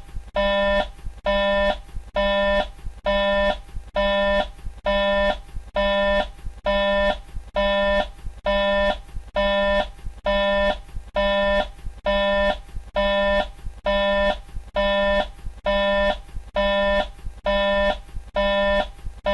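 Mercedes-Benz Travego coach's turn-signal indicator chime, an electronic two-part tick-tock tone repeating steadily about once a second while the indicator flashes.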